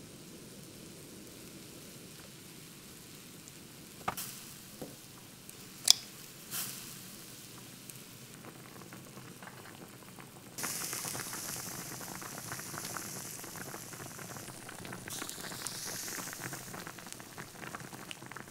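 Soft tofu stew bubbling and sizzling in a black earthenware pot, a steady hiss of boiling. A few sharp taps and knocks come about four to seven seconds in, the loudest near six seconds, and from about ten seconds in the sizzling is louder and hissier.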